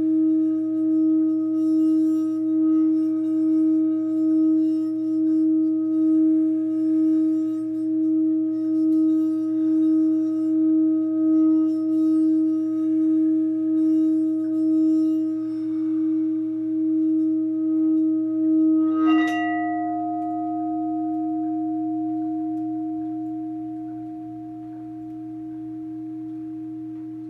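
Metal singing bowl sung by circling a mallet around its rim: a steady low hum with overtones, swelling and fading in a regular wobble. About two-thirds through, a short clink as the mallet comes off the rim, and the bowl rings on, slowly fading.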